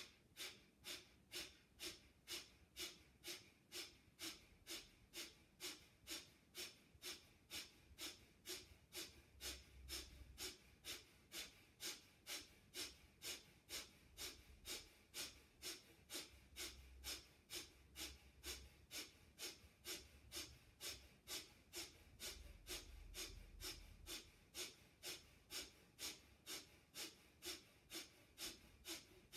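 A woman's rapid, forceful breaths through the nose in an even rhythm of about two a second, each a short sharp puff, as in a yoga pumping-breath exercise.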